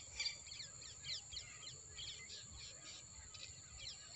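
Many small birds chirping in a busy chorus of short, quick falling chirps that overlap throughout, over a steady high-pitched tone.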